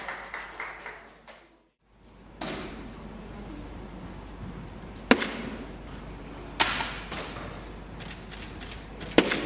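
Soft-tip darts striking a Phoenix electronic dartboard: three sharp hits, the first a little past halfway, the next about a second and a half later, and the last near the end.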